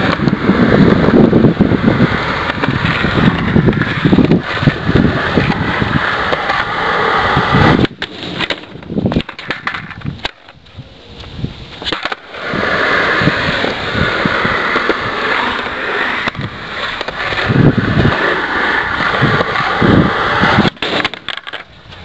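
Skateboard wheels rolling on concrete, with a quieter lull in the middle, then a few sharp knocks near the end as the board clatters down onto the concrete.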